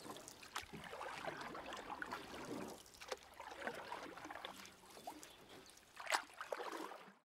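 Faint murmur of many voices with occasional clicks and clatter, the background of a crowded exhibition hall; it cuts off near the end.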